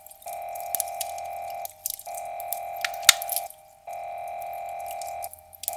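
Electronic alert tone sounding in long, even beeps, each about a second and a half with short gaps, three full beeps and a fourth starting near the end, over scattered sharp ticks.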